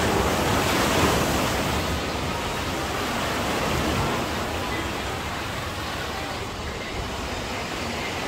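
Sea surf on a beach: a wave breaks and washes in with a steady rush, loudest in the first second or so, then slowly eases off.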